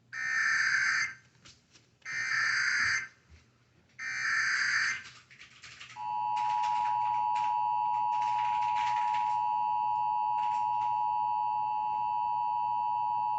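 Emergency Alert System header: three bursts of the digital SAME data signal, each about a second long and two seconds apart. About six seconds in, the steady two-tone attention signal starts and holds, announcing a tornado warning.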